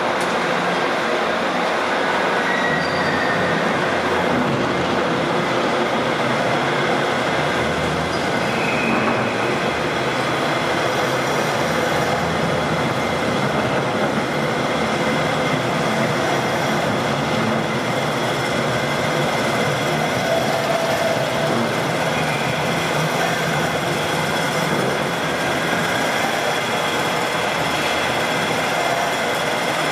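Manchester Metrolink M5000 trams running through the tram station: a steady rumble of steel wheels on the rails, with a few brief faint wheel squeals.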